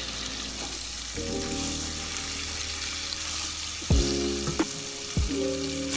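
Butter sizzling as it melts in a hot pan, a steady hiss, with soft background music of sustained notes coming in about a second in.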